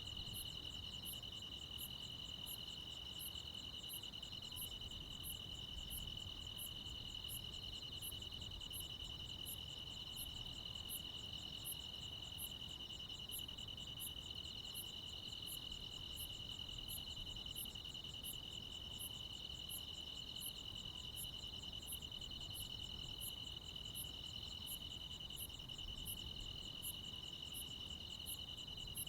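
Night chorus of crickets and other insects: a steady, unbroken high trill, with another insect's very high chirp repeating evenly about one and a half times a second over it.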